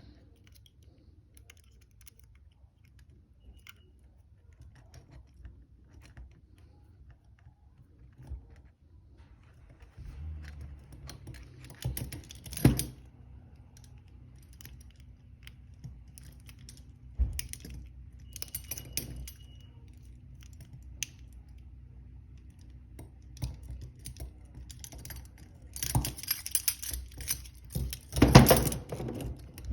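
Picking a handcuff lock: small metallic clicks and scrapes of the pick tools in the keyhole, with a louder metal clack about a third of the way in and a burst of clattering near the end as the cuff comes open.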